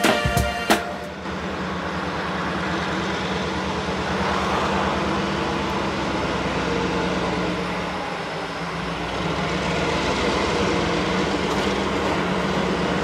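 Diesel locomotive of a loaded coal freight train running steadily as it approaches at low speed, a continuous engine drone over a low rumble. A few closing music notes sound in the first second.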